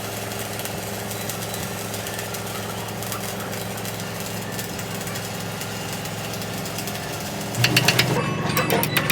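A steady machine hum with a fine crackling hiss over it; about seven and a half seconds in it turns louder, into a rapid run of sharp, clattering clicks.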